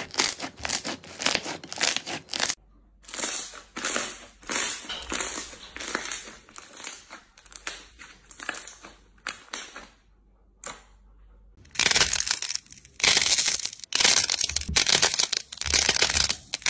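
Hands kneading and pressing slime, a rapid run of short wet squishes and crackles. It pauses briefly twice and is louder and denser in the last few seconds.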